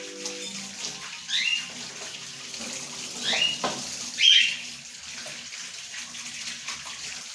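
Water running steadily from a kitchen tap into a sink, with four short, sharp, high-pitched sounds over it in the first half.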